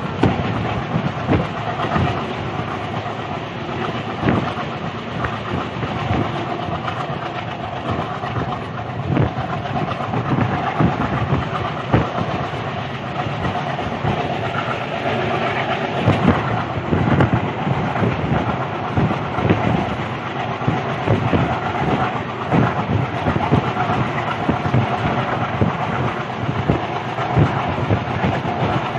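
Passenger train running along the track, heard at an open coach door: a steady rolling rumble with frequent clicks and knocks of the wheels over the rails.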